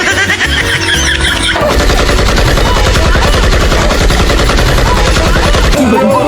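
Loud background music with a fast, rattling beat and a pulsing bass that drops out near the end.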